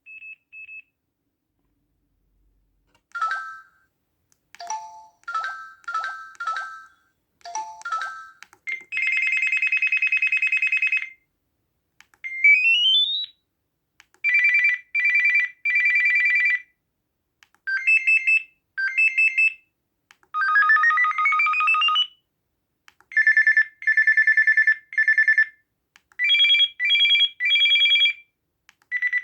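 Samsung SPH-A790 phone ringtones played one after another: two short beeps, a short electronic melody of a few notes, then a series of trilling electronic ring patterns, two of them with a rising pitch sweep, each separated by a brief pause.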